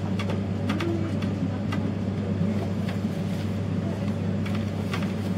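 Steady running rumble inside a passenger train carriage on the move, with a constant low hum and a few light clicks.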